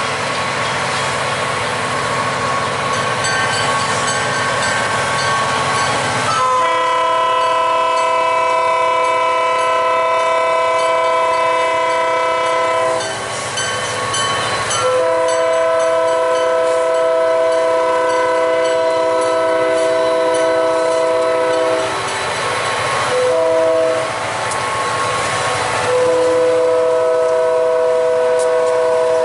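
Diesel freight locomotives rumbling as they approach, then the lead locomotive's multi-note air horn sounds the grade-crossing signal: two long blasts, a short one, and a long one that is still sounding at the end.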